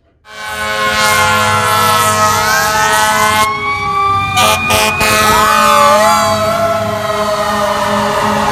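Emergency vehicle sirens wailing, several overlapping tones gliding up and down over steady pitched tones, starting suddenly just after the start.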